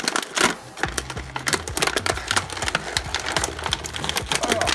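Clear plastic packaging crinkling and crackling as plastic toy parts are pulled out of a bag and blister tray, with the hard plastic pieces clicking and clattering against it.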